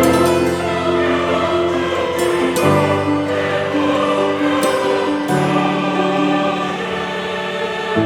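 Background music with a choir singing long held chords over low sustained notes. The chord changes about every two and a half seconds, with a sharp accent at each change.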